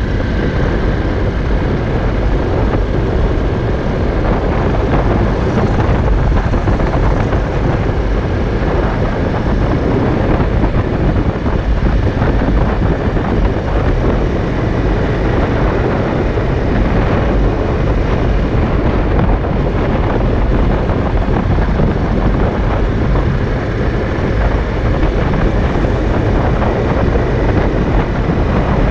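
Honda CRF250L's single-cylinder four-stroke engine running at a steady cruise, mixed with heavy wind rushing over the microphone.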